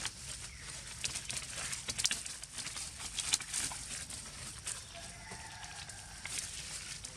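Irregular rustling and clicking, with a faint short monkey call a little after the middle.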